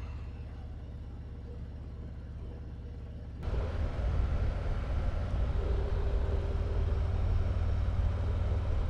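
Motorcycle on the move: a steady low engine rumble with road and wind noise. The whole sound suddenly gets louder about three and a half seconds in and stays there.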